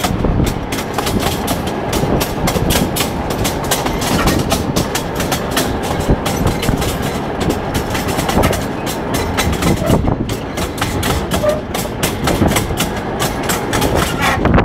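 Rail draisine's wheels clattering on the track while it runs, a steady dense run of clicks and knocks over a continuous rumble.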